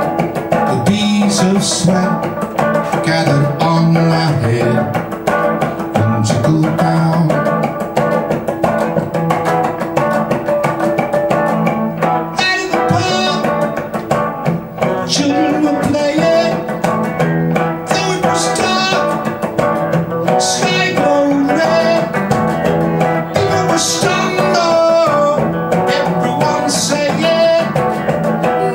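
Electric guitar played live in a song, an instrumental passage of picked and strummed notes running on without a break between sung lines.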